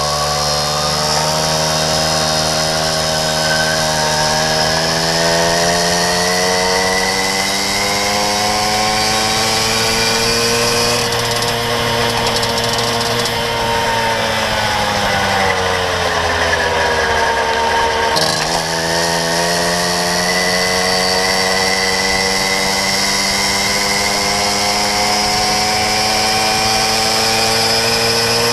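Puch Maxi moped's 50 cc single-cylinder two-stroke engine with a Proma GP exhaust, buzzing under way. Its pitch climbs slowly over the first ten seconds, sags and dips sharply about two-thirds of the way in, then climbs again as the moped picks up speed.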